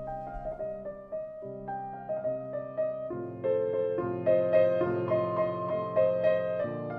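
Solo piano music: single notes and chords struck at a gentle pace, growing fuller and louder about three seconds in.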